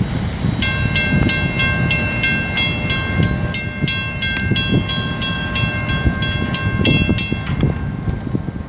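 Railroad crossing bell ringing rapidly, about three strikes a second, then stopping near the end as the crossing signal shuts off, over a steady low rumble.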